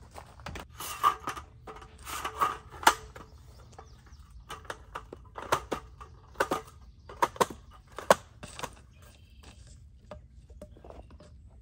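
Folding camp table and chair being collapsed and packed away: a string of irregular knocks, clacks and rattles, loudest about a second in, near three seconds and about eight seconds in.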